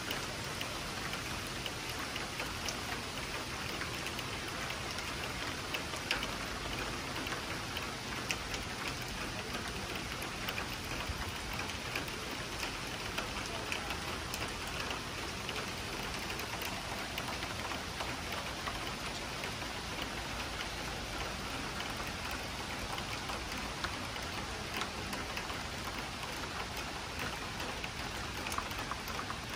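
Steady summer rain, an even hiss with scattered close raindrop ticks.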